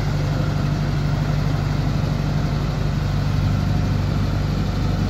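JCB backhoe loader's diesel engine running steadily with a low, even engine note as the machine moves along a railway track.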